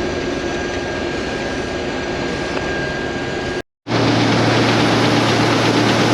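Case IH combine running steadily. After an abrupt cut a little over three and a half seconds in, a louder steady engine drone with a low hum takes over.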